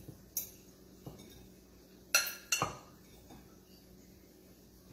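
Kitchen dishes and utensils clinking and knocking: a few light clicks, then two louder clinks close together about two seconds in.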